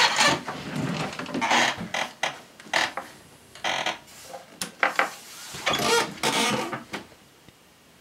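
Handling noise from moving an iMac and its cables on a wooden desk: a string of irregular rustles, scrapes and knocks that stops about a second before the end.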